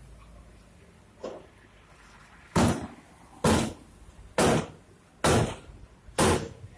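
A long bar rammed repeatedly against the steel drop side of a truck bed: one light knock, then five heavy bangs about a second apart, each ringing briefly.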